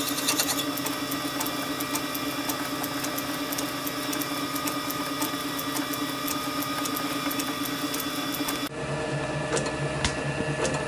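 Small metal lathe running, a boring bar cutting steel in the four-jaw chuck: a steady motor and gear hum with faint regular ticking. Near the end the sound changes abruptly to a lower, steadier hum.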